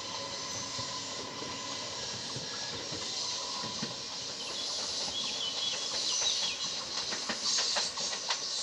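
Trenitalia Coradia Stream 'Pop' electric multiple unit pulling away: a steady motor whine and hiss. From about halfway through, a run of sharp wheel clicks as it runs over rail joints and points.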